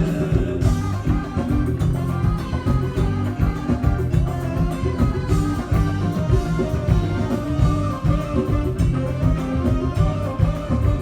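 Live band music: guitar over a drum kit keeping a steady beat.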